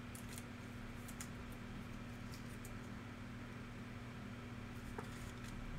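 Faint handling of trading cards, a few light clicks and rustles as cards are shuffled and set down, over a steady low electrical hum.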